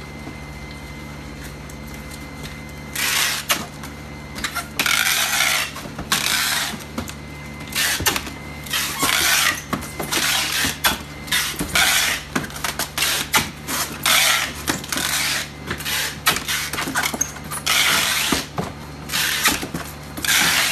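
Packaging being handled: repeated rustling and tearing bursts mixed with sharp clicks, starting about three seconds in and recurring about a dozen times, over a steady low hum.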